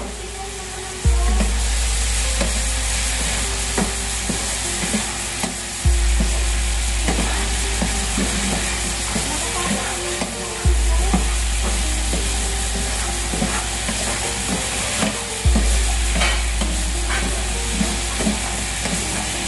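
Shrimp sizzling and frying in a pan as they are stirred, with small clicks and scrapes of the utensil against the pan. A deep hum comes back with a thump about every five seconds.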